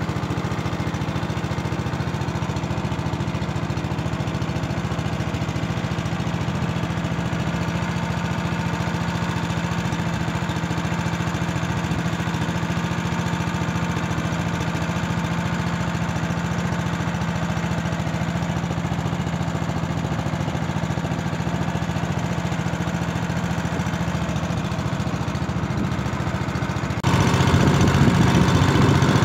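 Small engine running at a steady speed, with a low even hum; it gets noticeably louder about two seconds before the end.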